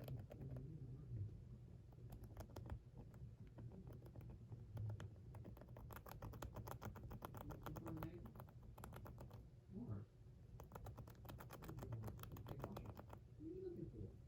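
Hamster gnawing on a chew block: rapid, dry clicking of its teeth on the block in dense runs, with a short pause about ten seconds in.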